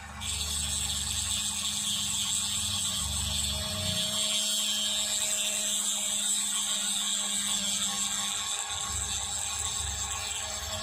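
Small high-speed rotary drill with a fine bit, starting about a third of a second in and running steadily with a high whine as it grinds down an eMMC chip on a phone board.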